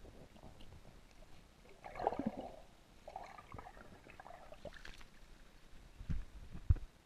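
Water gurgling and splashing close to the camera, with clicks and bursts of bubbling, and a few low thumps near the end.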